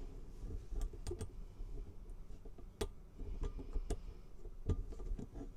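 Scattered small, sharp clicks and taps, about seven spread irregularly over several seconds, from hard parts and hand tools being handled during work on the shifter.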